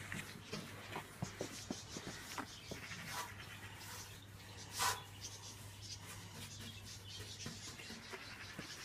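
Small paintbrush scrubbing primer onto a rusty steel tractor bonnet: a run of short, scratchy brush strokes, with one louder stroke about five seconds in.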